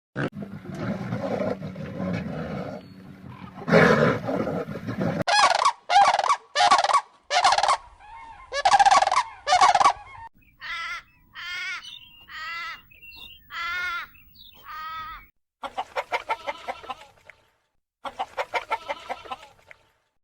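A run of separate farmyard poultry recordings: loud repeated calls, then a series of six wavering calls, then two bouts of rapid clucking near the end.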